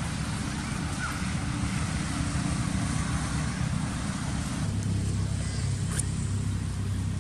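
Steady low rumble with hiss from outdoor background noise, taking on a steadier low hum about four and a half seconds in, with one sharp click about six seconds in.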